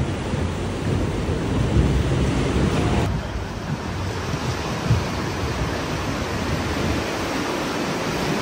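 Wind buffeting the microphone over the sea, with a wash of waves. The heavy low rumble of the gusts drops away suddenly about three seconds in, leaving a steadier hiss.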